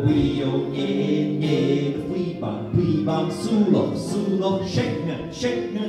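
Unaccompanied singing: a sung melody of held, gliding notes with no instrument playing.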